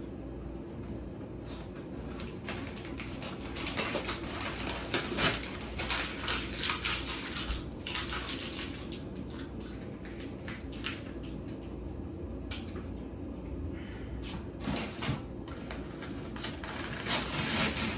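Brown paper mailer envelope being handled and torn open: irregular paper rustling and crinkling with scattered clicks and light knocks, busiest a few seconds in and again near the end.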